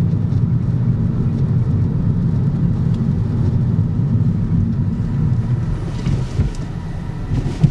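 Skoda car running with a steady low rumble, and a short knock near the end.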